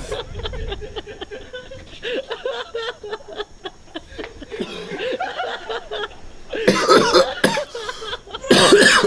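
Low voices and chuckling, then two loud bouts of coughing, about seven and eight and a half seconds in.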